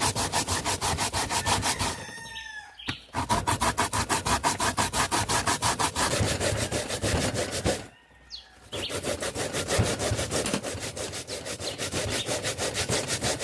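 Sweet potato and yam being grated by hand on a grater: quick, even rasping strokes, about five a second, that stop briefly twice.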